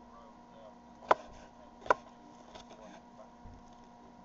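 Kitchen knife chopping green chili peppers on a wooden cutting board: two sharp knocks of the blade on the board about a second apart, then a couple of fainter ones.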